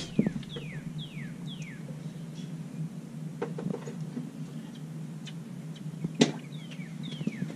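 A bird singing a run of clear whistles, each slurring downward, four at the start and more near the end, over a steady low hum. A single sharp knock about six seconds in.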